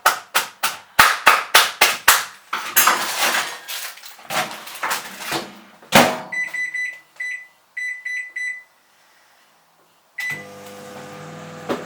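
A screwdriver stabbing holes in the plastic film of a microwave meal: a rapid run of sharp pokes, about four a second. Then clattering knocks and one loud thud as the microwave door shuts, followed by several runs of short keypad beeps. After a brief pause a beep sounds and the microwave oven starts running with a steady hum.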